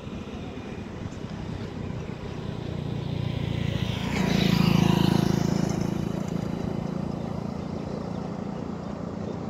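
A motor vehicle drives past close by. Its engine and tyre noise build up, peak about four to five seconds in with a falling pitch, then fade slowly as it moves away.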